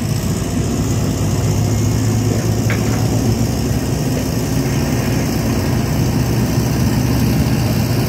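Heavy diesel engines of a concrete pump truck and transit mixer truck running steadily, a continuous low drone.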